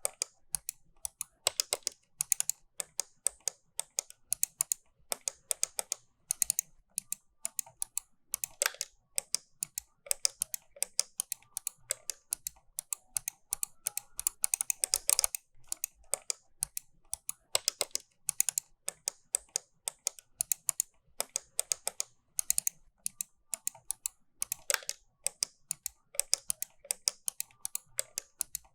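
Computer mouse button being clicked over and over, sharp plastic clicks coming several a second in irregular runs, with close pairs like double clicks.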